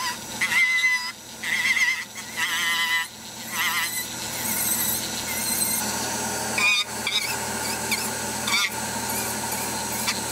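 Flexible-shaft rotary tool grinding a foam ski-boot footbed to bevel its edge and cut a channel for a heater cable. Its whine wavers in pitch in short spurts as the bit bites for the first few seconds, then settles into steadier grinding.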